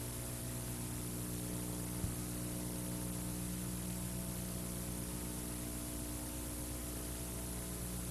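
Steady electrical hum with a low, even hiss and no other activity, and one faint click about two seconds in.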